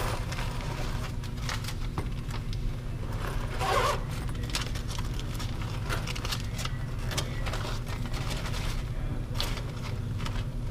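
Keys and coins being handled, with scattered light clicks and jingles over a steady low hum.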